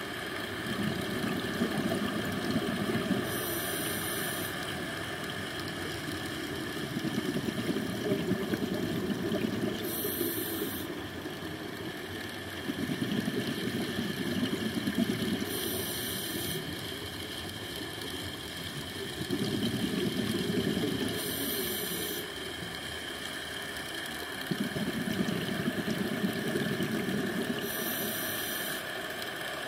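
A scuba diver breathing through a regulator underwater: a few seconds of rumbling exhaled bubbles, then a short hiss of the inhale, repeating about every six seconds, five breaths in all.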